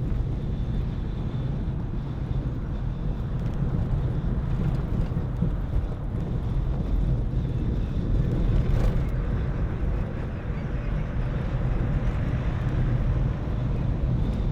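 Steady low rumble of a car driving along a road, its engine and tyres running evenly, with some wind noise on the microphone.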